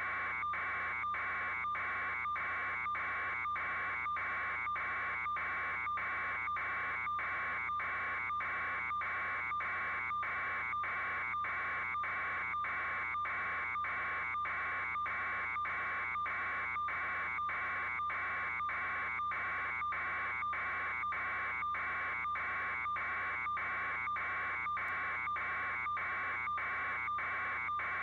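A steady, high buzzing hiss that breaks off briefly at an even pace, about twice a second.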